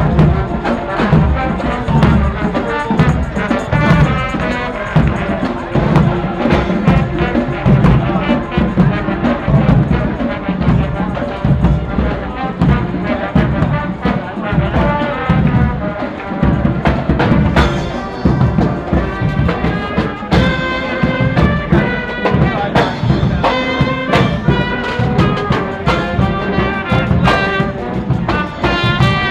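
A brass band playing, horns over a steady drum beat, the held horn notes coming out more clearly in the second half.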